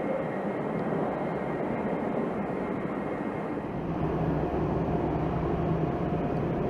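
E-2 Hawkeye aircraft flying overhead, their twin turboprop engines giving a steady engine noise with a low hum underneath.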